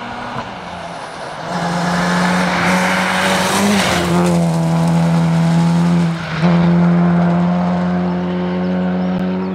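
Vauxhall Adam rally car at high revs on loose gravel, approaching and passing close by with a hiss of thrown gravel as it goes past about four seconds in. The engine note cuts out briefly about six seconds in and comes back higher, then holds steady as the car drives away.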